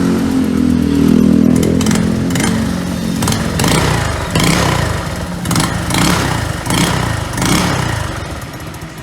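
Yamaha Mio scooter engine running through an MTRT V8 aftermarket exhaust pipe: idling steadily for about three seconds, then blipped through a string of quick throttle revs, each rising and falling.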